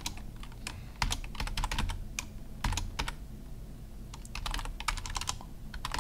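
Computer keyboard typing: quick keystrokes in short bursts, with a pause of a little over a second midway.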